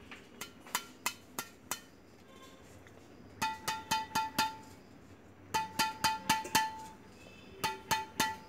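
A hand tapping a badminton racket's strings, then a run of sharp taps. The taps start as scattered clicks, then come in three quick groups of four or five, each ringing with a short, clear, glassy tone.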